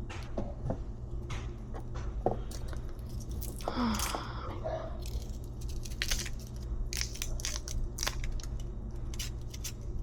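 Scattered small clicks and knocks over a steady low hum, with a brief voice-like sound about four seconds in.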